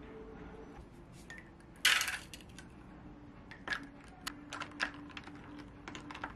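Sparkling water poured into a glass finishes, then an ice cube drops into the glass with a loud clink about two seconds in. Scattered light clinks and ticks follow as the ice settles and is stirred with a straw.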